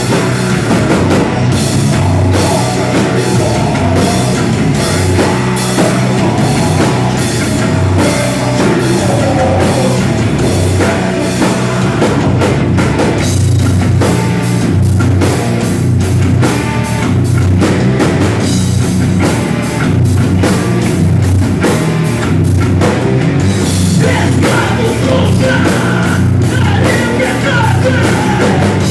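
Loud rock music in a heavy-metal vein, with a drum kit keeping a steady beat.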